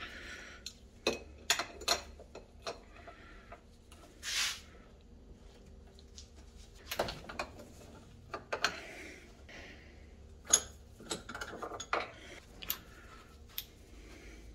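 Scattered metal clanks and clicks of hand-tool work at a bench vise: the vise's sliding T-handle and an adjustable wrench knocking against the vise and the power ratchet's motor housing, the sharpest click about ten seconds in, with a brief rushing scrape about four seconds in.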